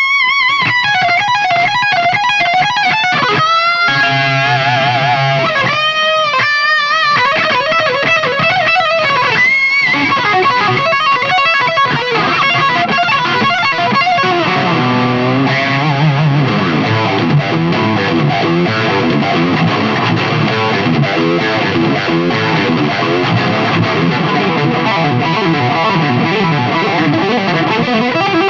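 Fernandes Revolver electric guitar played solo through an amplifier. The first half is held notes with wide vibrato and bends, broken by short phrases. From about halfway through it turns into fast, dense runs of notes.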